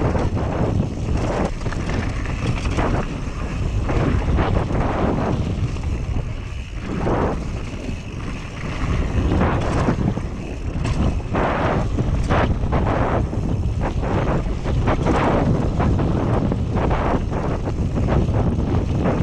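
Wind buffeting an action camera's microphone as a Whyte G-170 mountain bike rides down a loose dirt and gravel trail, with tyres crunching and irregular knocks and rattles as the bike goes over bumps and stones.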